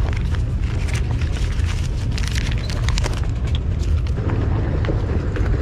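Wind buffeting the microphone, a steady low rumble, with scattered clicks and rustles of handling noise.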